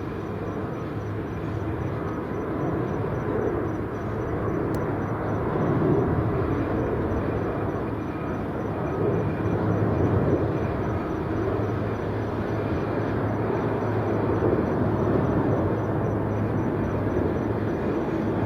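Jet airliner engines heard outdoors as a steady rumble that swells and eases slightly.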